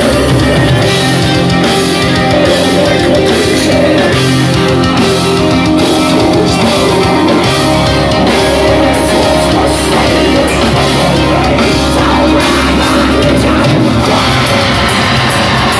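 Heavy metal band playing live at full volume: distorted electric guitars over a drum kit, dense and loud, with cymbals and drums hitting in a steady rhythm.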